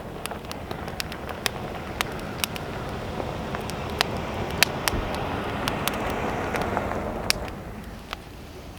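Wood campfire crackling, with sharp pops and snaps scattered throughout. Under it a rushing noise builds over several seconds and dies away near the end.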